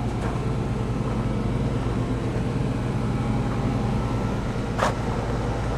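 An engine running steadily at idle: a low, even hum. A single short click comes about five seconds in.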